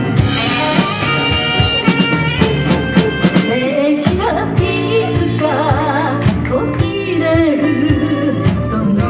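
Live pop band playing an instrumental break: drums, bass and keyboards under a lead melody line with a wide vibrato about halfway through.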